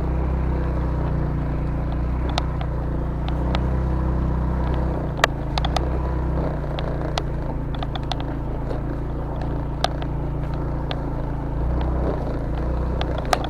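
Motorcycle engine running steadily at low speed on a rough, stony track, its note swelling slightly a couple of times. Scattered sharp clicks and knocks break through the engine sound.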